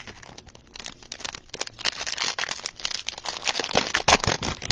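Foil wrapper of a trading card pack crinkling and tearing as it is ripped open, a dense run of quick crackles that grows louder about two seconds in.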